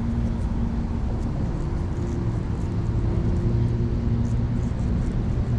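A motor vehicle's engine running steadily, a low even hum, with a few faint light clicks over it.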